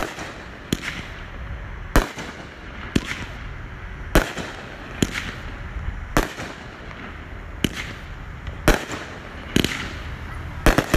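Consumer fireworks cake firing its shots in sequence: a sharp bang from an aerial break about once a second, each with a brief trailing rumble.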